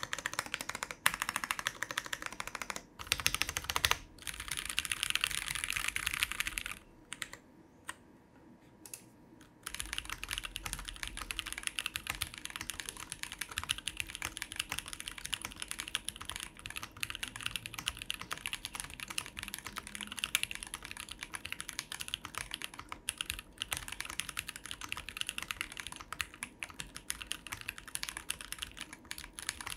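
Typing on the Rexus Daxa M82X Ultimate mechanical keyboard with Jwick T1 switches, a dense run of clacky keystrokes that are not very high-pitched. The typing pauses for a couple of seconds about a quarter of the way in, then runs on.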